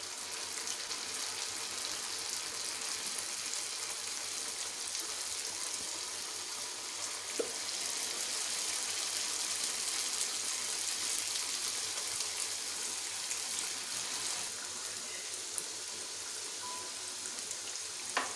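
Dough pieces deep-frying in hot oil, a steady high sizzle. There is a single light knock about seven seconds in and a click near the end.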